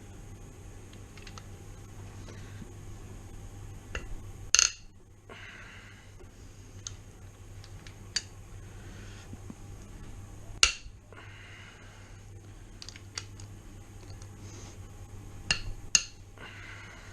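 Socket wrench and ratchet working on cylinder head bolts of a Rover V8: a sharp metallic click about every six seconds, each followed by a short rasping run, with scattered small ticks over a steady low hum.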